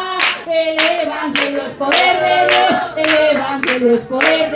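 Congregation clapping steadily in time, about three claps a second, as a woman sings a wordless melody line into a microphone over a loudspeaker, leading into the next chorus.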